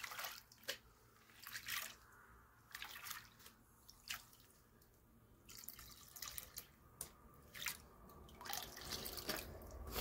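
Gold panning: muddy water splashing and dripping off the lip of a plastic gold pan into a tub of water as the clay is washed out. The splashes are faint and irregular, about one every second or so.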